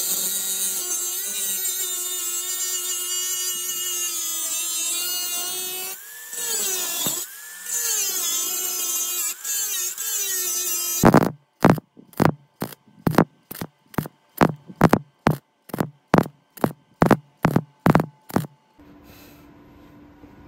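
Angle grinder cutting sheet steel, its motor whine dipping under load and picking up again, then stopping about eleven seconds in. A run of about seventeen sharp knocks follows, a little over two a second.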